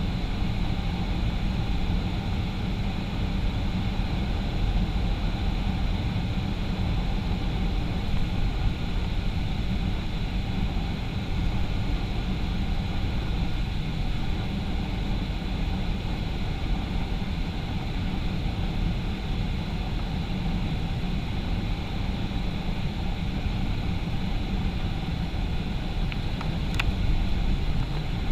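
Steady in-flight noise of a Boeing 737-500, engine drone and airflow heard inside the aircraft, with a strong low rumble and faint steady tones. There is one brief click near the end.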